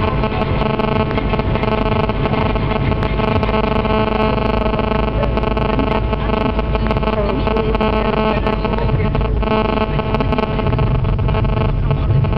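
Car interior noise while driving at a steady speed: an even engine drone with low road and tyre rumble, heard inside the cabin.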